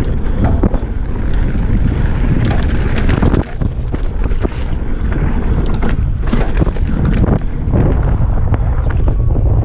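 Downhill mountain bike rattling over a bumpy dirt trail at speed: tyres on dirt with frequent clicks and knocks from the chain and frame over bumps, under heavy wind rumble on the microphone.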